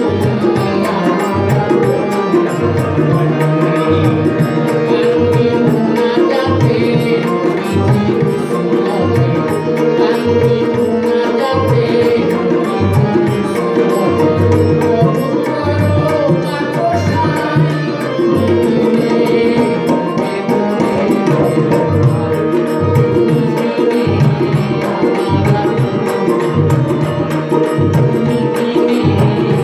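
Live Bengali Baul folk song: two harmoniums playing sustained chords over a tabla keeping a steady, busy rhythm, with a man singing at the microphone.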